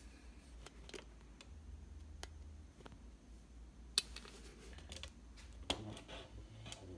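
Faint scattered clicks and light taps of hand handling, the sharpest about four seconds in, over a low steady hum.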